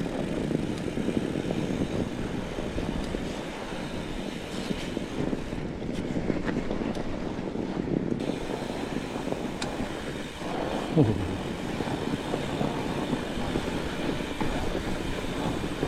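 Steady rushing noise of a fat bike being ridden along a snowy trail at speed: wind buffeting the microphone over the sound of the tyres rolling on snow.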